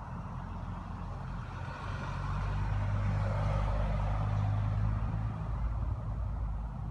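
A motor vehicle driving past: a low engine hum and road noise that build about two seconds in, hold loudest for a couple of seconds, then ease off near the end.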